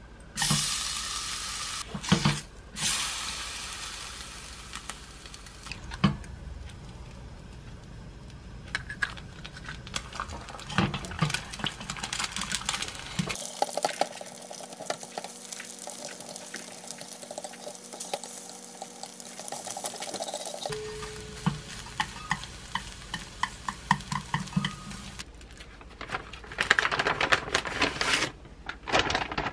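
Thin meat slices sizzling in a dry pan with no oil, with wooden chopsticks clicking against the pan. Then eggs are stirred and scrambled in the same small pan, the utensil tapping and scraping. Near the end comes a quick run of crinkling clicks.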